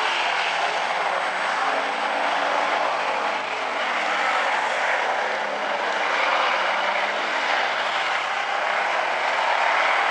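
Several hobby stock race cars running at speed, their engines blending into a steady, continuous noise with no single car standing out.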